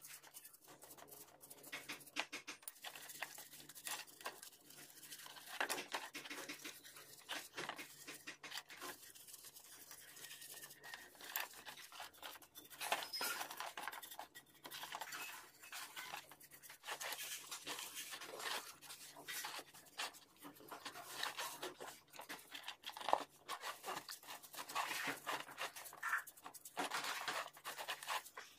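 Quick, irregular scraping, rubbing and tapping, over a faint steady low hum.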